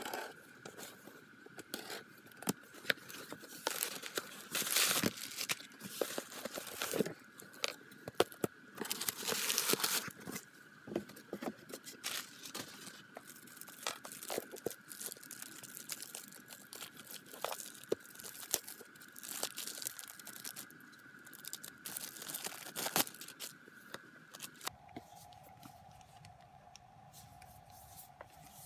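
A cardboard shipping box being opened by hand and a CD album in a clear plastic sleeve unwrapped: cardboard tearing and scraping, plastic crinkling, and small taps. Two louder tearing stretches come about five and ten seconds in.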